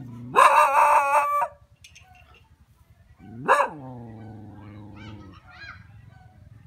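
A rooster crowing once, loud and wavering. About two seconds later a longer, lower animal call sweeps sharply up and then falls to a steady low note held for about a second and a half.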